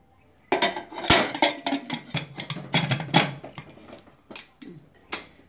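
Aluminium pressure cooker lid clattering and scraping against the pot as it is set on and closed: a quick run of metal clanks for about three seconds, then two single knocks.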